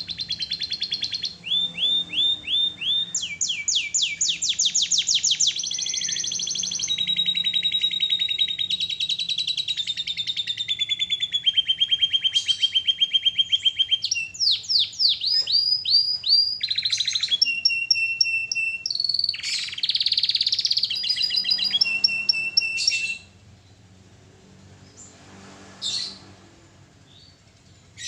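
Domestic canary singing a long, varied song of rapid trills, rolls and held whistled notes, stopping about 23 seconds in, then one short call a few seconds later.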